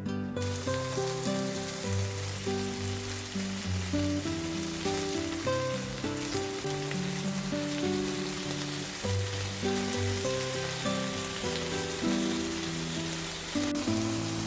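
Pork tenderloin medallions frying in oil in a pan, with a steady sizzle, over background music.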